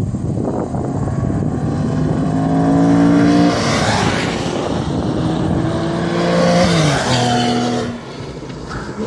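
Sports cars passing at speed on a race track, engines running hard. The engine sound builds and peaks twice, a few seconds apart, each time dropping in pitch as the car goes by.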